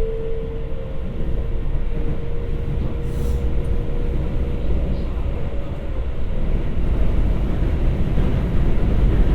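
Keikyu 1000 series train with a Siemens GTO-VVVF inverter, heard from inside the motor car: the inverter's steady whine, rising slightly in pitch, fades out about halfway through while the deep running noise of wheels and motors grows louder.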